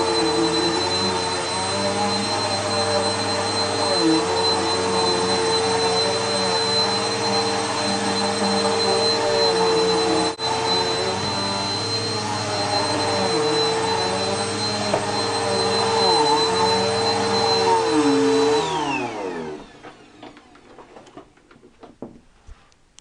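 Bissell PowerForce Helix bagless upright vacuum's 8-amp motor running steadily with a high whine. About three-quarters of the way through it is switched off and winds down, falling in pitch to a stop, and a few faint clicks follow.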